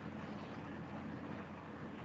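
Steady background noise with a low hum and hiss, no distinct events: room tone.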